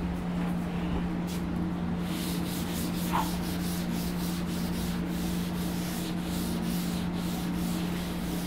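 Writing on a board: a run of short, quick, scratchy rubbing strokes that starts about two seconds in, over a steady low hum.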